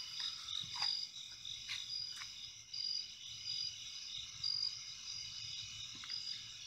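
Night insects, crickets among them, chirping in a steady high chorus, with short chirps repeating about twice a second.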